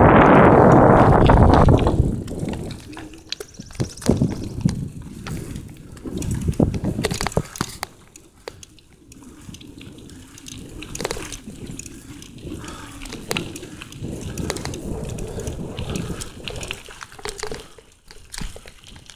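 Bicycle ridden along a forest dirt path: a loud rush of wind on the microphone for the first two seconds, then the bike rolling more quietly with many small rattles and clicks.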